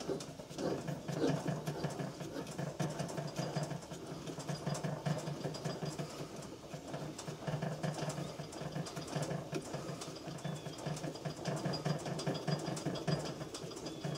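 A HeliCoil tap cutting new threads in an aluminium water pump housing, turned by hand through a drill-press chuck: a continuous run of small clicks and creaks over a low steady hum.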